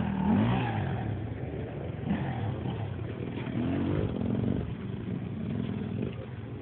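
Small motorbike engine revving up and easing off as it rides, its pitch rising and falling several times.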